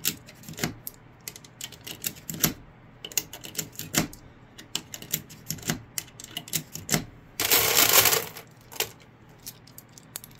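An UpLULA magazine loader clacking as it is squeezed over a 9mm Glock pistol magazine, and 9mm cartridges clicking into the magazine one at a time in an irregular run of sharp clicks. About three-quarters through comes a rattle lasting about a second.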